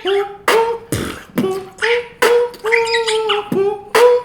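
Beatboxer's vocal sound-effect pattern: sharp mouth-made cracks, each running straight into a short hummed note. The note steps back and forth between two pitches, about two sounds a second.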